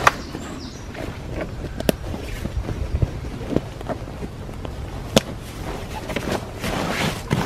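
Heavy canvas bedroll being pulled out and smoothed flat by hand: stiff fabric rustling and brushing, with a few sharp clicks along the way.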